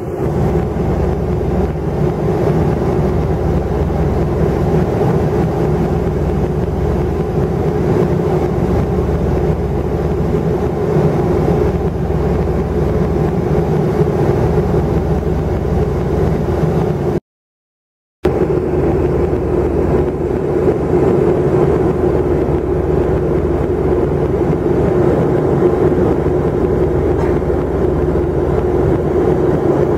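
Airliner cabin noise in cruise: a steady drone of jet engines and airflow with a constant hum over a low rumble. It drops out completely for about a second a little past the middle.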